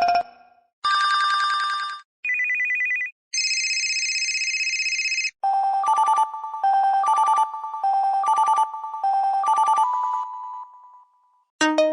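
HTC HD7 phone ringtones playing one after another. First come short electronic chimes and a held tone, then a ringtone repeating a short two-note phrase about six times, and a new ringtone begins near the end.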